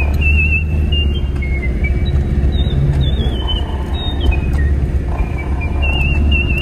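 Moskvich 407's four-cylinder engine running under load as the car struggles stuck in snow, over a wavering high-pitched whistle that shifts up and down in pitch.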